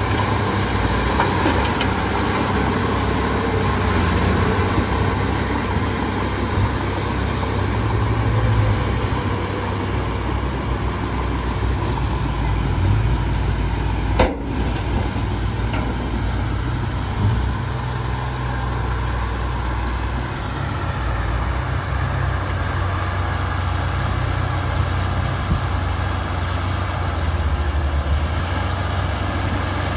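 Heavy diesel earthmoving machinery running steadily under load, with a deep engine rumble and one brief dropout about halfway through.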